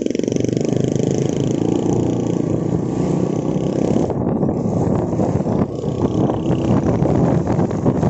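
Motorcycle engine running steadily with road noise while riding, heard from the rider's seat.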